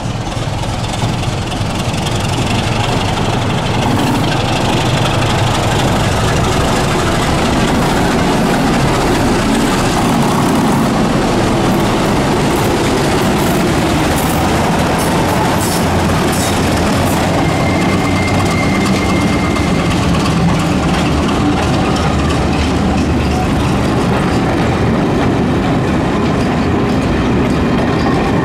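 Class 73 electro-diesel locomotive passing close by on its diesel engine, hauling passenger coaches whose wheels clickety-clack over the rail joints. The engine and wheel noise build over the first few seconds, then hold steady and loud.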